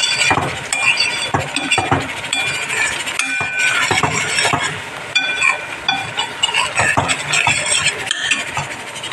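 Steel spoon stirring a thick tomato masala in a stainless-steel pan, scraping and clinking against the metal over and over, with short high-pitched squeaky scrapes.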